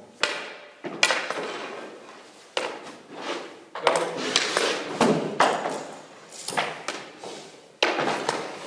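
Hockey pucks and sticks in a goaltending shooting drill: a run of about ten sharp knocks and thuds, each with an echoing tail, as pucks are shot and strike the goalie's pads, stick and the boards.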